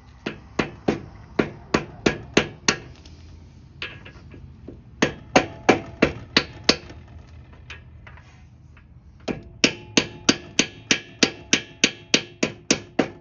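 Hammer blows on a pipe used as a seal driver, tapping a new axle seal into a Sears GT garden tractor's transaxle housing to seat it. The blows come in three runs of quick strikes, about three a second, with short pauses between runs.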